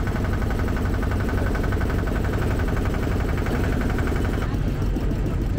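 Boat motor running steadily with an even, low engine drone. Some of its higher tone drops away near the end.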